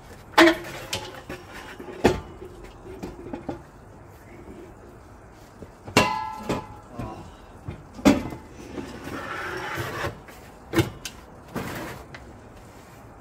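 Metal clanks and knocks from a gas patio heater's base and gas bottle being handled and fitted, one clank about six seconds in ringing briefly, with a short hiss a few seconds later.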